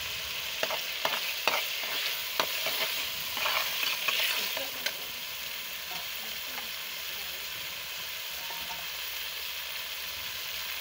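A metal ladle stirring red chilli powder into a tomato-and-onion masala frying in an aluminium pot, over a steady sizzle. The ladle knocks and scrapes against the pot several times in the first five seconds, then the sizzle carries on alone.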